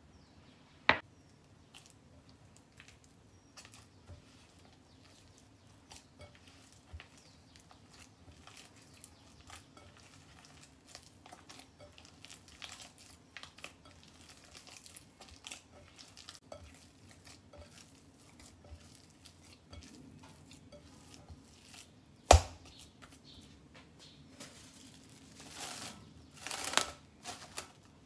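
Hands kneading soft, buttery bread dough in a glass mixing bowl, many small sticky clicks and smacks, with a sharp clink about a second in and a loud knock later on. Near the end, plastic cling film crinkles as it is stretched over the bowl.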